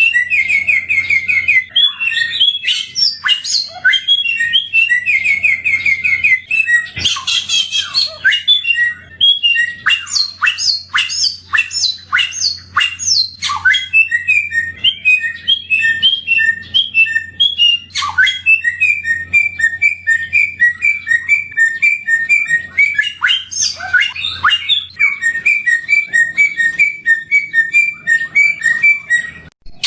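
Songbird known locally as samyong singing continuously: fast runs of short, high, repeated notes and trills, with rapid sweeping notes in the middle. A faint low hum lies under most of it.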